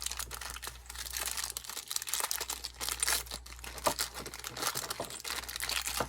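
Plastic bag crinkling and rustling in a dense run of sharp crackles as small parts are handled and put back into it.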